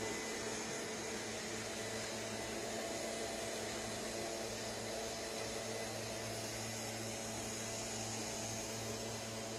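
Steady hiss with a constant low hum underneath, unchanging and without any distinct sounds.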